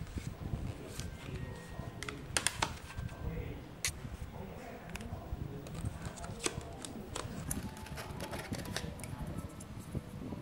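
Hands handling a cardboard smartphone box and its accessories, with paper inserts sliding and scraping and a run of light clicks and taps of cardboard and plastic. The sharpest clicks come a little over two seconds in and near four seconds, over a steady low rumble.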